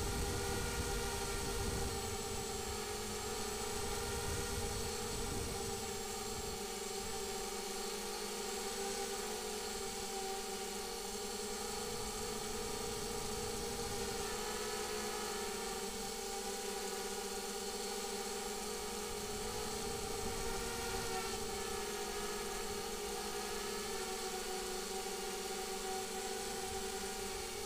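Multirotor drone's electric motors and propellers whining steadily, heard from the camera mounted on the craft, the pitch wavering slightly as the throttle shifts.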